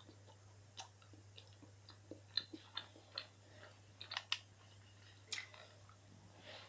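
A person chewing close to the microphone: a scatter of soft, irregular mouth clicks and smacks over a faint low hum.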